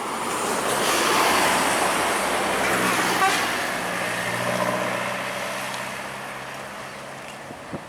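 A heavy road vehicle passes close by, loudest about a second or two in, with a brief horn toot about three seconds in. Its engine's low hum then fades away as it moves off.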